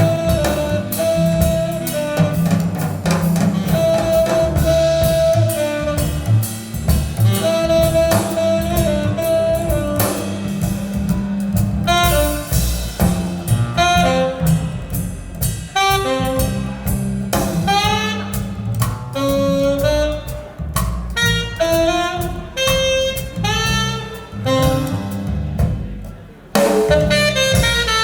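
Jazz recording with a saxophone lead over drum kit, played back from a vinyl record through Sonus Faber Aida 2 SE loudspeakers. The music drops briefly near the end before coming back in full.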